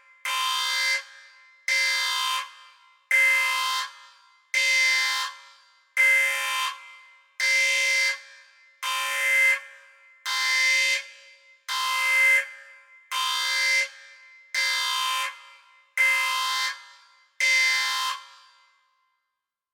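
An alarm sound effect: a steady alarm tone with many overtones sounding in about thirteen blasts, each about a second long with a short fading tail, roughly one every second and a half. The blasts stop near the end.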